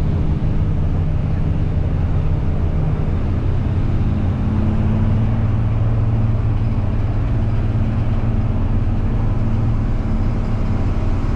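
Bus engine running with a steady low drone, heard from on board; the engine note changes about four seconds in.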